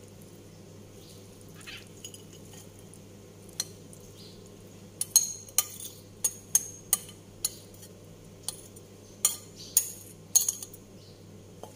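Metal spoon clinking and scraping against ceramic dishware as food is scraped out of a bowl onto a plate: a few light taps at first, then about a dozen sharp clinks from about five seconds in. A steady low hum runs underneath.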